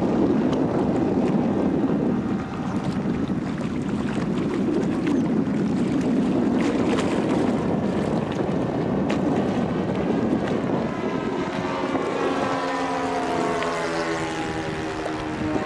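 Wind on the microphone mixed with the drone of a radio-control Canadair CL-415 model's propellers; in the last few seconds the propeller whine comes through clearly, its pitch sliding down as the model passes close.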